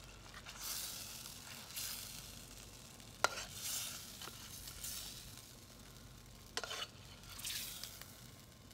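Metal spoon scraping through a hot sauté pan as chicken marsala and its sauce are spooned out, with the sauce sizzling in soft swishes. The spoon clicks sharply against the pan twice, about three seconds in and again near seven seconds.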